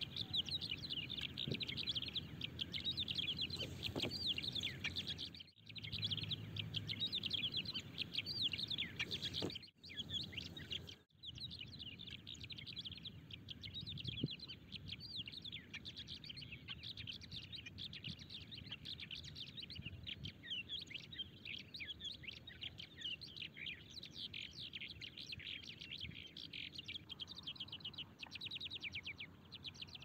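Small songbirds chirping continuously in a dense run of quick, falling notes. The sound cuts out briefly three times in the first half.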